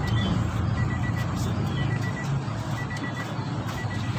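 A series of short, high-pitched electronic beeps at uneven intervals, over a steady low mechanical hum.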